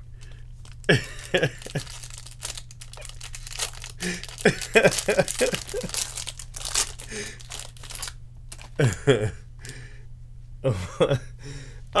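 Foil wrapper of a Bowman baseball card pack being torn open and crinkled, with the cards rustling against each other as the stack is handled. The crinkling is busiest in the middle.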